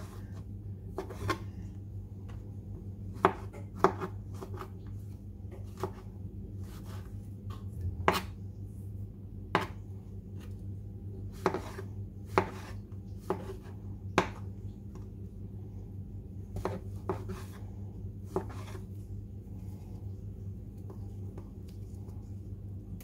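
Kitchen knife slicing button mushrooms into strips on a plastic cutting board. The blade knocks sharply on the board at irregular intervals, roughly once a second, thinning out near the end, over a steady low hum.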